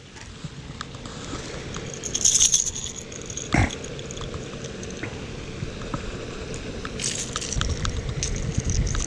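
A small bass shaking on a Rat-L-Trap lipless crankbait while it is lifted and grabbed, the lure's rattles clattering in short bursts about two seconds in and again near the end. A single knock falls in between, and there is some handling rumble at the end.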